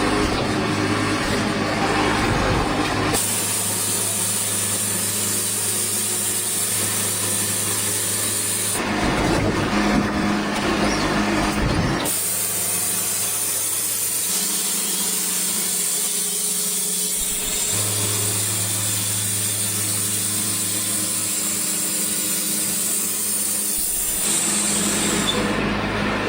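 Portable sawmill running: a steady engine hum under a high hiss from the blade cutting. The sound changes abruptly several times.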